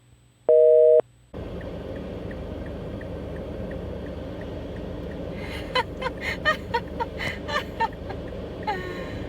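Telephone busy signal, two tones together in half-second beeps, with one beep about half a second in. It gives way about a second in to steady outdoor background noise, with a run of quick short chirps in the second half.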